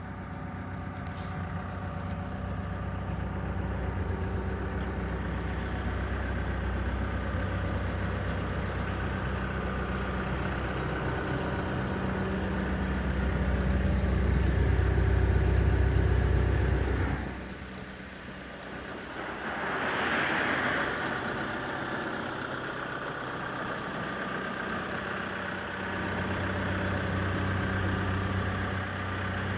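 Doosan DX140LC excavator's diesel engine running with a steady low hum. It grows louder a little past the middle, then drops away abruptly, with a brief hiss before the hum returns near the end.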